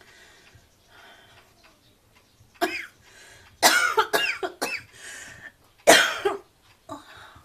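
A woman coughing: one cough, then a quick run of several coughs, then a last loud cough near the end.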